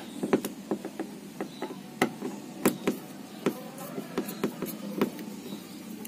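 Screwdriver working a screw out of a washing machine's cover panel: a run of irregular clicks and taps as the tip turns in the screw head and knocks against the panel.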